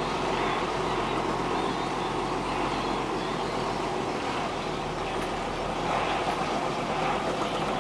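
Tractor engine running steadily under way, heard from inside the cab, with a constant hum and road noise from the rough track.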